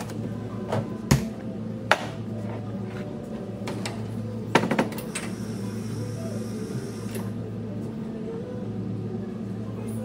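Cafe work sounds: a few sharp knocks and clatters, the loudest about a second in and a quick cluster near the middle, over a steady low hum, with a faint high whine for about two seconds.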